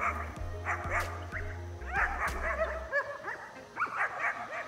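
Black German Shepherd barking in rapid high yips, several a second, over background music with a steady bass line that drops out about three seconds in.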